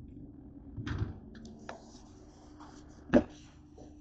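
Kitchen handling noises as a jar is taken from a refrigerator shelf: a soft rattle and a few light clicks, then one sharp knock of something set down on a hard surface about three seconds in.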